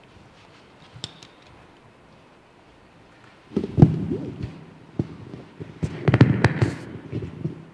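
Faint steady hiss, then from about three and a half seconds in an irregular run of knocks, thumps and clatter with several sharp clicks, the loudest near the start of the run and again about a second before the end.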